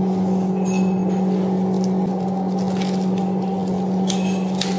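A steady, even mechanical hum at one constant pitch. A few short clicks and scrapes sound over it, about a second in and again near the end.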